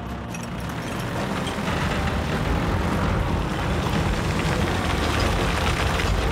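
Heavy diesel machinery running with a low rumble that grows louder about two seconds in, as a chain pulls a bulldozer track over its track frame.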